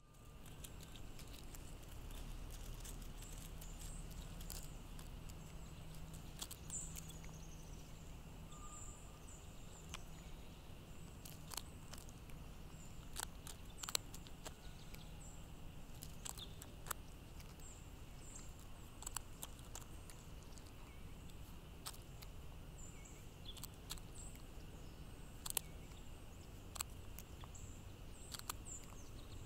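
Crow foraging on gravel: scattered sharp clicks and taps as its bill pecks at peanuts and mealworms among the stones and its feet shift on the gravel, at irregular intervals. A steady outdoor hiss lies under it, with faint high chirps.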